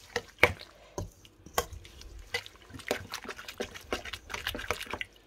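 Metal spoon tossing sliced red onion, chili and lime in a wet dressing in a stainless steel bowl: irregular clinks of the spoon against the bowl with wet squelching and dripping.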